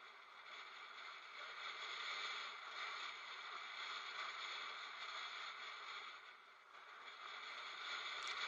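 Steady rushing hiss from riding a bicycle on a paved road, wind and tyre noise picked up by a bike-mounted action camera, easing briefly about six and a half seconds in.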